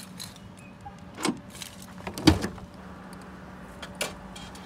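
A few sharp knocks and thumps, three of them standing out, the loudest a little past two seconds in, over a steady low hum.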